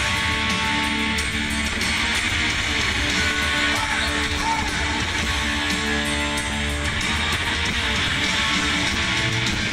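Live rock band playing in an arena, electric guitars strumming and holding chords over bass and drums, heard from far back in the crowd. The sound is loud and continuous, with no singing.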